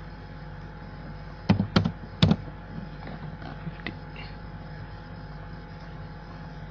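Three sharp clicks from computer input close together about a second and a half in, then a fainter click near four seconds, over a low steady hum.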